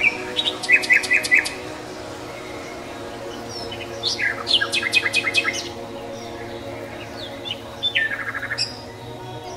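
Small birds chirping in three bursts of rapid, repeated notes, the last a falling run near the end, over a steady low hum.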